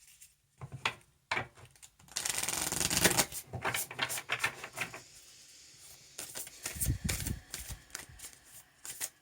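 Oracle cards being shuffled by hand: scattered card taps and flicks, with a dense, continuous stretch of shuffling about two seconds in.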